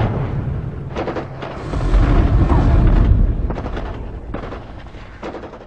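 Cinematic explosion-like sound effect: a deep booming rumble that swells again about two seconds in, with several sharp gunfire-like cracks, then fades out near the end.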